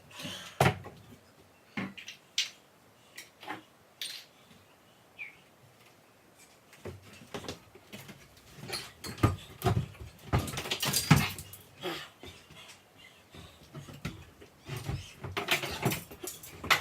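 Irregular knocks, taps and scraping from a hammer and nail puller prying a backsplash and countertop off kitchen cabinets, busiest about halfway through and again near the end.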